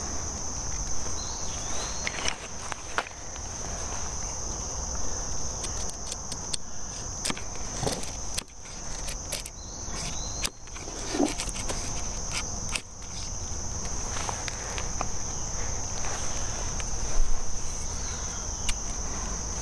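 A knife whittling a stick of kindling, with scattered scrapes and clicks as the blade cuts shavings, over a steady high-pitched insect trill.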